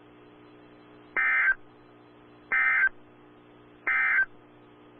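Three short bursts of EAS SAME digital data tones, each under half a second and about 1.3 s apart: the end-of-message signal that closes an emergency weather alert. A faint steady hum runs underneath.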